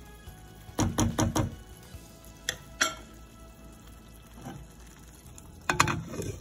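A spoon stirring thick corn in a pot and knocking against the pot: a quick run of about four knocks about a second in, two single knocks around the middle, and another short run of knocks near the end.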